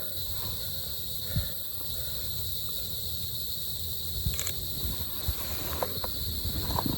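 Steady high-pitched chorus of insects, with a low rumble and a few brief soft knocks beneath it.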